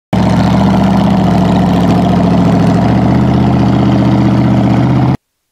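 Formula Offroad buggy's engine idling steadily and loudly, with a deep, even tone; the sound cuts off suddenly about five seconds in.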